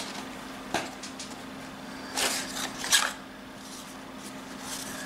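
Hands handling a cardboard phone box and its paper inserts: a light tap about a second in, then two short paper rustles around two and three seconds in, over a low steady hum.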